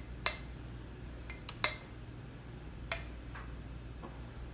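Metal spoon clinking against glass while tomato sauce is spooned from a jar onto the baking dish: a few sharp clinks about a second apart, each with a short ring.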